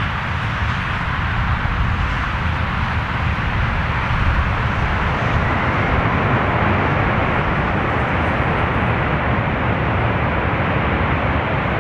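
Jet engines of a DC-10-family trijet freighter running at high power as it rolls down a wet, spray-covered runway: a loud, steady rush of engine noise that grows a little louder about four seconds in.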